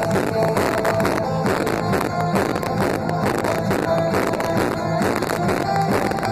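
Electronic trance dance music played loud over a nightclub sound system, with a steady driving beat and repeating synth notes, recorded on a phone.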